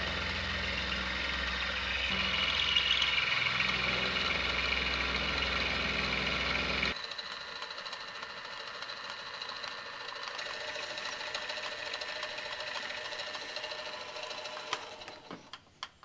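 Benchtop milling machine (Grizzly G0704) running an end mill through a steel brake caliper bracket, milling out the clip groove for more clearance. A steady motor hum with the cutting sound, dropping abruptly to a quieter steady whine about halfway, and dying away near the end.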